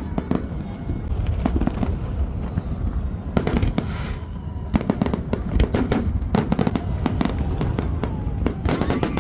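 Fireworks going off: many sharp cracks and bangs in quick clusters over a continuous low rumble, busiest in the second half.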